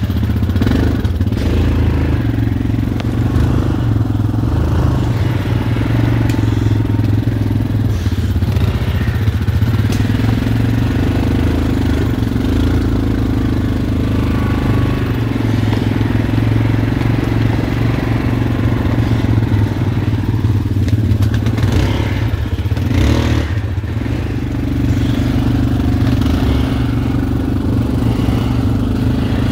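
ATV engine running steadily at low revs while driving along a brushy forest trail, with a brief knock or clatter about three-quarters of the way through.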